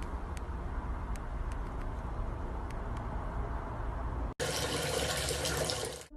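Steady rushing noise with a few faint clicks; about four seconds in it cuts suddenly to a louder, brighter rush.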